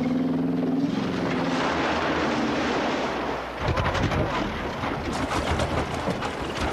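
A hippo's drawn-out bellow fades out about a second in, followed by rushing water. From about three and a half seconds in, a Land Rover's engine runs low as it drives into a river, with water splashing around it.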